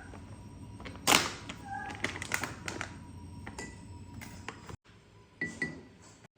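Household handling sounds: a series of clicks and knocks with a loud short rustle about a second in, and a few short high beeps from an appliance in the middle, over quiet background music.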